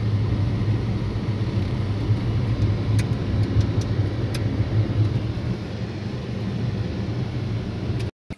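Car driving along a road, heard from inside the cabin: a steady low rumble of engine and road noise, which cuts off suddenly near the end.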